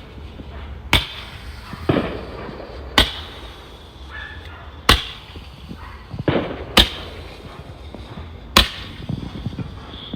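Handheld firework shooting off a series of sharp cracks, five strong ones evenly spaced about two seconds apart, with a couple of weaker pops between.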